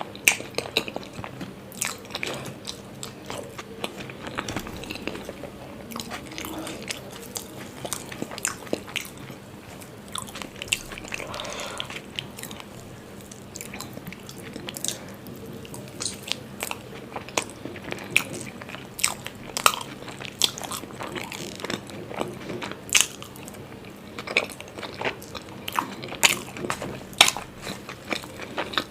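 Close-miked eating sounds: a person biting and chewing paratha and masala chaap, with frequent wet smacks and crunchy clicks, over a faint steady hum.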